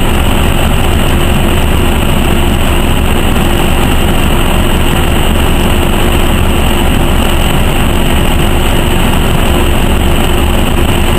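NovaBUS RTS city bus idling while stopped, heard from inside the bus: a steady, loud engine rumble with a constant hum over it.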